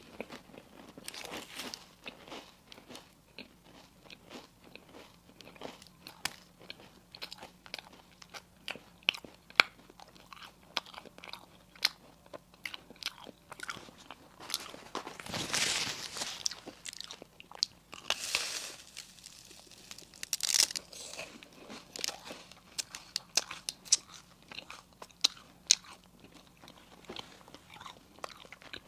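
Close-miked eating: a person biting into and chewing a crisp pastry, with many sharp little crackles and a few louder crunchy bites a little past the middle.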